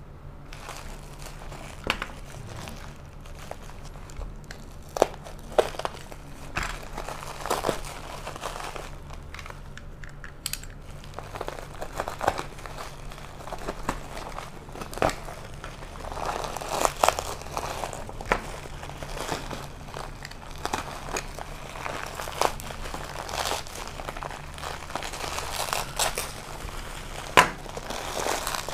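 Plastic bubble wrap crinkling and crackling as a taped parcel is handled and torn open, with irregular sharp crackles throughout.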